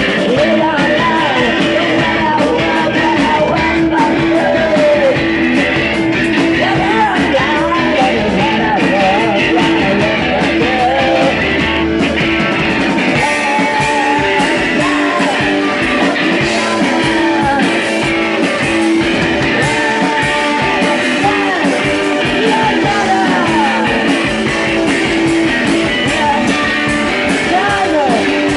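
Live rock band playing loud electric guitars and drums, with a voice singing over them. The deep low end thins out about halfway through.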